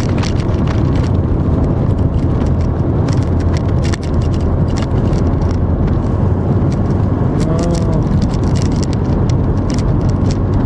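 Strong wind buffeting the microphone: a loud, steady low rumble with frequent crackles.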